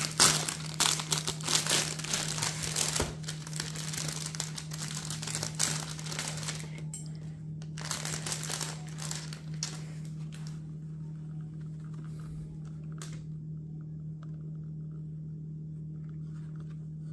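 Clear plastic bag crinkling as it is handled and pulled off a sunglasses box, busy for about the first ten seconds, then only a few scattered crinkles, over a steady low hum.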